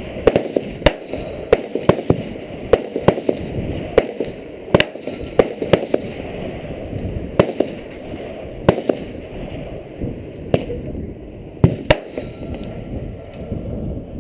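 Gunshots at a shooting range, about twenty in all at irregular intervals. Some shots are loud and close, others fainter, over a steady low background noise. Among them is a Springfield 1911 .45 ACP pistol being fired with fresh loads.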